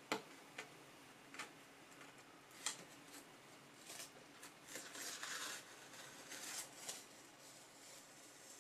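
Faint, scattered light taps and clicks, with a brief rustle about five seconds in and another near six and a half seconds.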